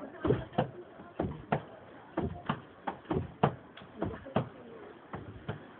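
Footsteps of people walking, a run of irregular knocks about two or three a second.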